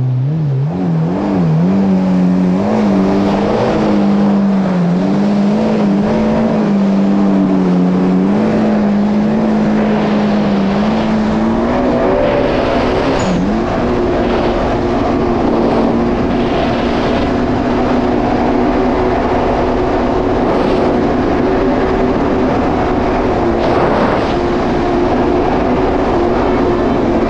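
Yamaha GP1800R SVHO WaveRunner's supercharged 1.8-litre four-cylinder engine pulling hard from low revs, its pitch rising quickly as the throttle opens. It then runs at high speed with a steady drone that wavers slightly, stepping up a little about halfway through and holding there.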